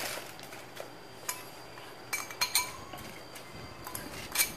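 Metal spoon clinking and scraping against a ceramic bowl while scooping rock salt: a handful of sharp, short-ringing clinks at uneven intervals, the loudest near the end.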